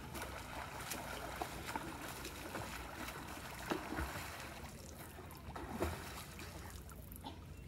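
Lake water splashing and sloshing as two swimmers stroke through it: a low, steady wash of small splashes, with a slightly louder splash near the middle and another later on.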